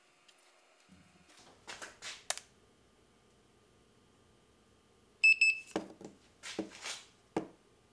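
Handheld infrared thermometer giving one short, high beep about five seconds in as it takes a reading. Clicks and knocks from the thermometer being picked up and handled come before and after the beep.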